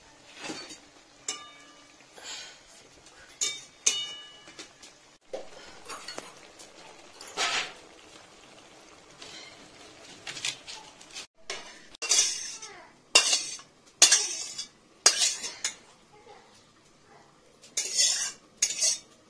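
Metal utensil stirring and scraping cabbage curry in a steel cooking pan: irregular scrapes with a few short ringing metal clinks, the strokes louder in the second half.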